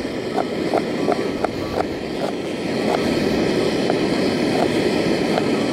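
A knife dicing an onion on a board, a run of light quick chops about two to three a second, over the steady rushing hiss of a camp gas burner heating a pot of water.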